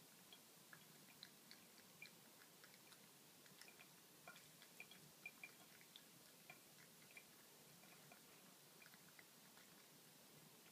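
Faint, quick, irregular clicks of a cat lapping a thin stream of tap water with its tongue, over a soft steady hiss.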